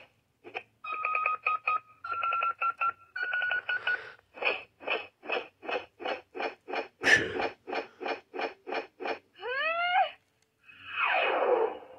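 Power Rangers Cosmic Fury morpher toy playing its electronic sound effects through its small speaker as its button is pressed: a few short beeps, three held tones stepping up in pitch, a quick run of beeps about three a second, then rising sweeps and one falling sweep near the end.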